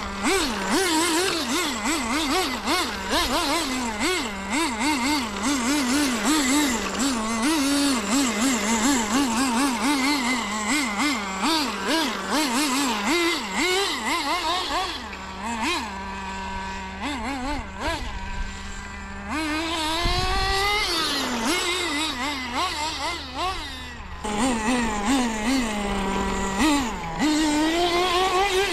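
HPI WR8 rally RC car's nitro engine revving hard up and down in quick bursts, with the crunch and spatter of gravel under the tyres. It settles to a steady idle for about four seconds past the middle and again briefly near the end, then revs up rising at the very end.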